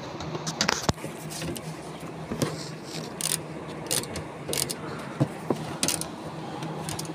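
Socket wrench and metal parts at a car seat's mounting, clicking and knocking irregularly as the tool is worked, over a steady low hum.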